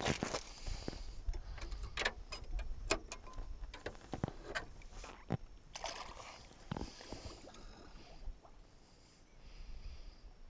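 Sharp knocks and clicks of gear being handled against an aluminium boat hull. About halfway through comes a splash and wash of water as a perforated metal bait cage goes over the side on a rope.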